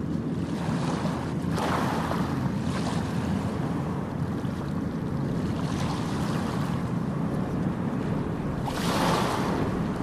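Ocean waves washing on a shore: a steady rush of surf that swells louder about a second and a half in and again near the end.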